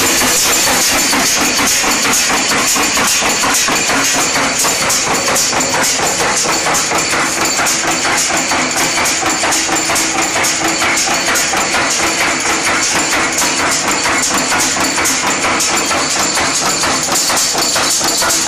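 N-6 wire nail making machine running, heading and cutting nails in a rapid, even clatter of strokes over a steady hum.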